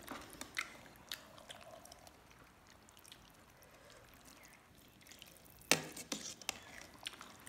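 Soft clicks and drips of broth as food is stirred and lifted in a pot of soup, with a sharper click a little under six seconds in.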